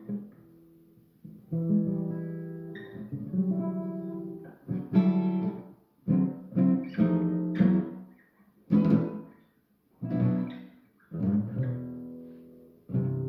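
Guitar played on its own: plucked notes and strummed chords that ring and fade, in loose phrases with short pauses between them.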